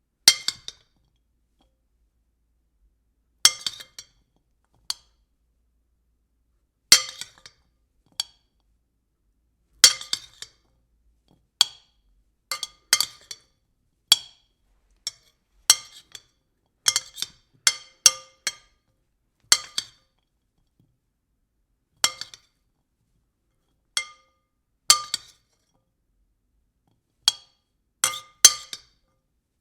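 A spoon tapping and clinking against a bowl. Short ringing clinks come one at a time or in quick doubles and triples with irregular pauses between them, the bowl ringing briefly at the same few pitches each time.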